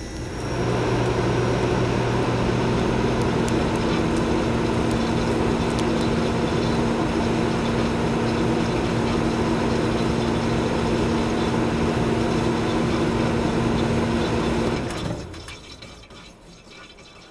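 A steady, loud noisy drone with a low hum running through it, fading out near the end.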